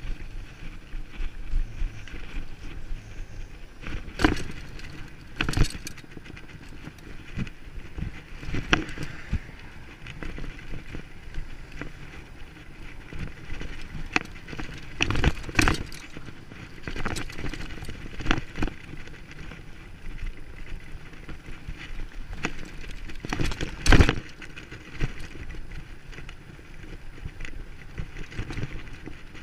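Bicycle ridden over rough ground: a steady rolling noise with rattling, broken by several sharp knocks from bumps or landings, the loudest about 24 seconds in.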